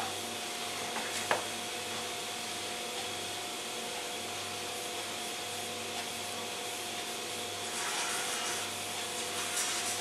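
Steady background hiss with a faint, even hum and a single small click about a second in. No ringing comes from the phone shut inside the closed microwave oven.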